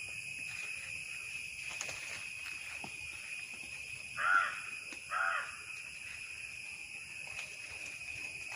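Steady high-pitched insect chorus, with a crow cawing twice about four and five seconds in.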